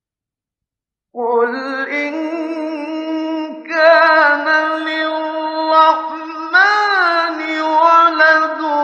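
A man's voice reciting the Quran in the melodic mujawwad style, with long, ornamented held notes. It comes in about a second in after dead silence and pauses briefly for breath twice.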